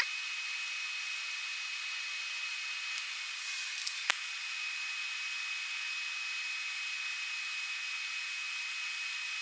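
TIG welding arc burning steadily: an even hiss with a thin, high steady whine. There is one short click about four seconds in.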